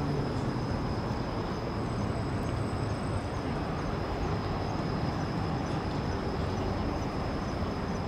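Steady low rumble of distant city traffic, with a thin, steady high-pitched tone over it.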